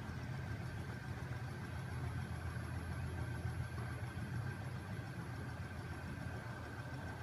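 Homemade magnet-crankshaft machine driven by an electric motor, running at steady speed with its flywheel spinning: an even low hum with a faint steady high whine over it.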